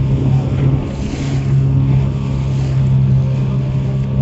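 A small open boat's motor running at a steady cruising speed with a constant low hum, with wind on the microphone.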